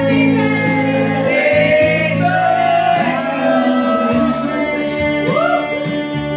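A woman singing karaoke into a handheld microphone over a recorded instrumental backing track, holding and sliding her notes.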